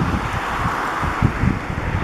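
Wind buffeting the microphone in irregular low rumbles, over a steady rushing background noise.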